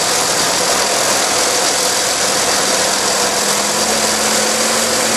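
Self-propelled forage harvester chopping corn for earlage: a steady loud machine din of engine and cutterhead, with a dense hiss of crop flow and a faint low hum that shifts slightly higher about two seconds in.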